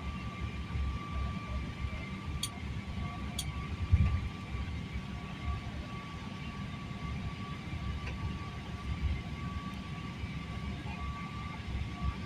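Steady engine and airflow noise inside an airliner cabin: a low rumble with a thin, steady high whine over it. A short thump about four seconds in, after a couple of faint clicks.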